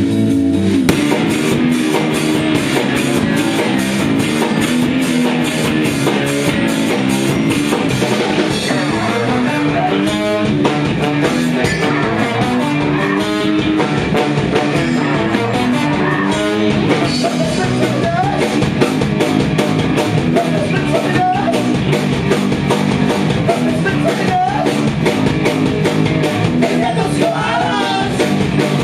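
Live rock band playing: electric guitars, bass guitar and drum kit, with a steady beat.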